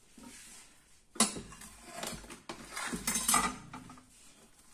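Cling film crinkling and rustling as it is smoothed and pressed down over a dessert dish, with a sharp knock about a second in.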